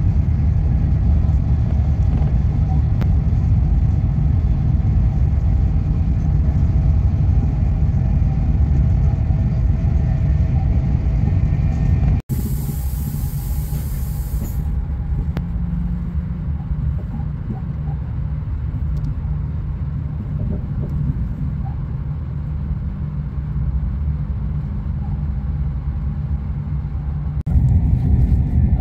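High-speed train running, a steady low rumble heard from inside the passenger car. About 12 seconds in it breaks off for an instant and comes back quieter, with a short hiss at first. It is louder again near the end.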